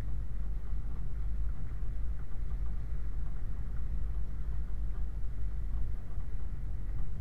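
Steady, muffled low rumble of a Land Rover 90 driving slowly along a rough, wet gravel track, heard from a GoPro mounted on the vehicle's rear, with faint crackling from the tyres on stones.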